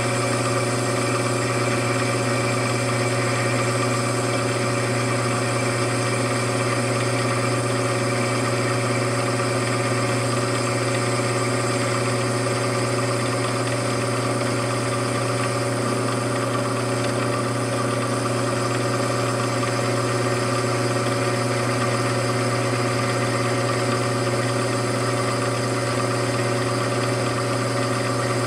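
A machine motor running steadily, an unchanging hum with many even tones.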